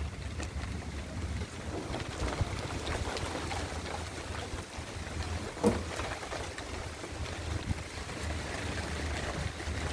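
Steady hiss of approaching rain with gusting wind rumbling on the microphone, and one brief sharp sound about halfway through.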